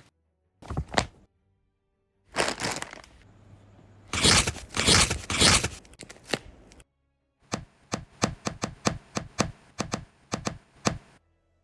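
Recreated foley sound effects: a short tap, then two rough scraping or rustling sounds, the second longer and louder. After that comes a fast run of sharp taps, about four a second, that stops near the end.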